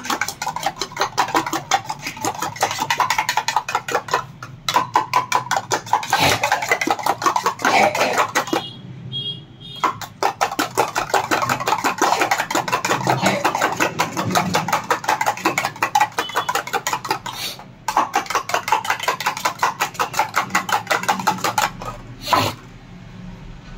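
Steel spoon beating a raw egg in a stainless steel tumbler, clinking rapidly and steadily against the metal sides, with two short pauses, about a third and three quarters of the way through.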